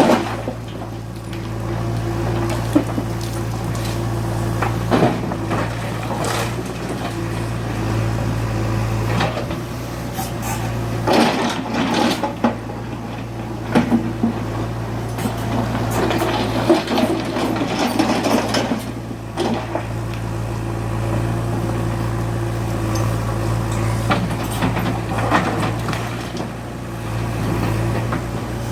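Diesel engine of a JCB 3DX Xtra Eco backhoe loader running steadily under work, with occasional knocks and short noisy bursts as the machine works.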